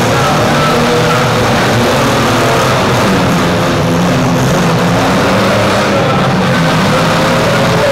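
Many demolition-derby SUV and small-truck engines running and revving at once, a dense, steady engine noise with pitches wavering up and down.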